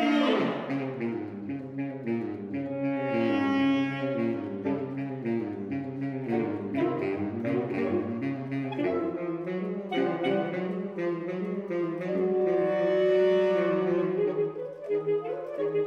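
A saxophone quartet, soprano down to baritone saxophone, playing a contemporary twelve-tone piece: layered held chords over a moving low line, with a loud chord right at the start.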